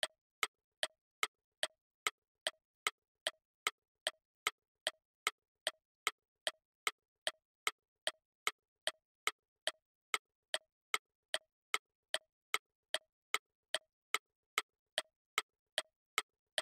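Clock-ticking sound effect, evenly spaced ticks about two and a half a second, counting down the time left to answer the quiz.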